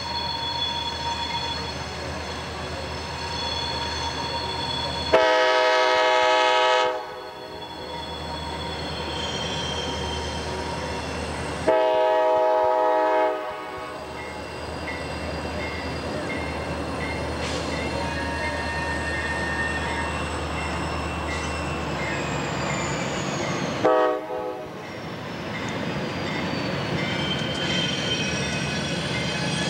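CSX C40-8W locomotive's air horn sounding two long blasts, a few seconds apart, and a short one near the end, over the steady rumble of the passing freight train.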